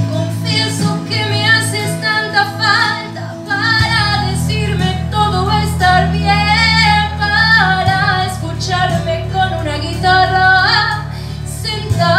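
A woman singing a song into a microphone over a live-performance accompaniment of held low chords that change about every four seconds.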